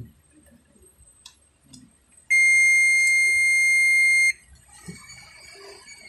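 A single long electronic beep: one steady high tone that starts about two seconds in, holds for about two seconds and cuts off sharply. Faint clicks from the test leads and wires being handled come before and after it.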